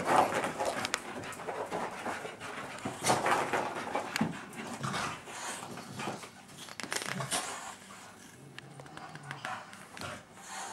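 Staffordshire bull terrier panting in irregular bursts, out of breath from sparring with a cat.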